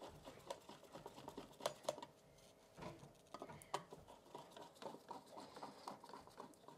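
Faint, irregular small clicks and scratches of hand work on a metal floor outlet box and its receptacle cover, parts being handled and fitted.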